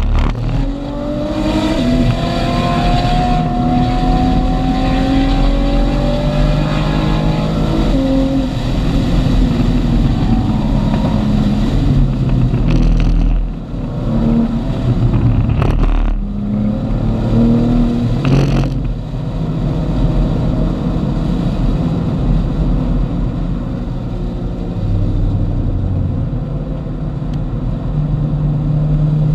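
Car engine heard from inside the cabin at track speed, rising in pitch under acceleration for several seconds, with a few short breaks about halfway through, then running steadily at a lower pitch.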